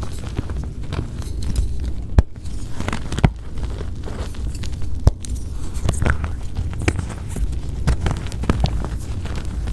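Blocks of gym chalk being crushed and crumbled, a low steady crunching broken by sharp cracks about once a second as pieces snap.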